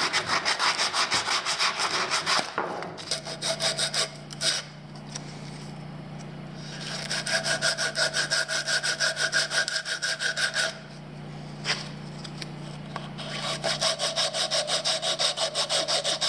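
Sandpaper rubbed by hand over the edge of a Baltic birch plywood slingshot frame, in quick back-and-forth strokes of about four or five a second. The strokes come in several runs with short pauses between them. A steady low hum runs underneath from about three seconds in.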